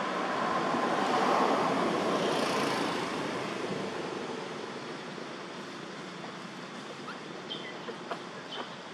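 A vehicle passing by: a rush of noise that builds to a peak about a second and a half in, then fades away over the next few seconds. A few short bird chirps follow near the end.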